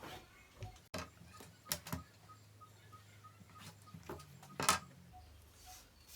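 A few light taps and short scraping strokes from marking a line on blouse fabric with a ruler on the cutting table. The loudest stroke comes near the end.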